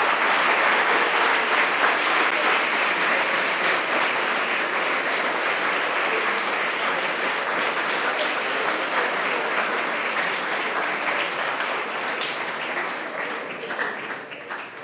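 Audience applauding: a long, steady round of clapping that tapers off near the end.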